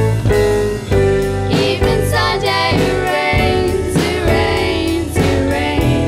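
A live band playing a pop-rock song: drum kit, electric guitar and upright double bass, with a sung vocal line over the top.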